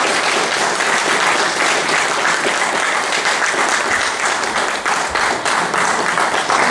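Audience applauding, a steady dense clapping that welcomes a speaker.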